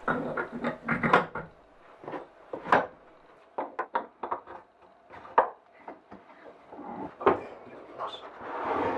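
Scattered wooden knocks, taps and clatters as a wooden board and hand tools are handled on a wooden workbench. Near the end a hand saw starts cutting the board.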